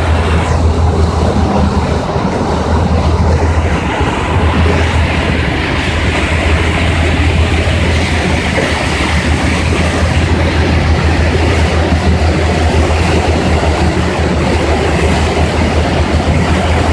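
Passenger ferry's engine running with a steady low drone, under a constant rushing noise of water and wind.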